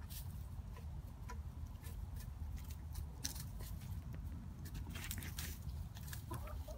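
Hens pecking at food scraps in straw, their beaks making irregular quick taps and rustles over a steady low rumble.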